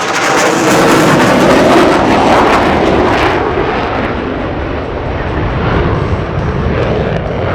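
Supermarine Spitfire's Rolls-Royce Merlin V12 engine on a low, fast pass, its pitch falling as it goes by. It is loudest about one to two seconds in, then settles to a steadier, quieter drone as the plane moves away.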